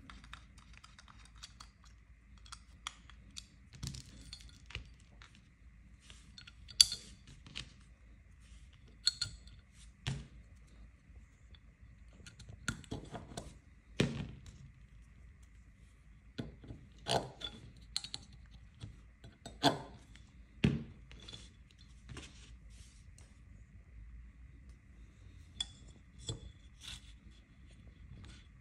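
Irregular clinks, clicks and light knocks of small metal parts being handled and fitted together during hand assembly of a Steambow AR-6 Stinger II metal crossbow magazine.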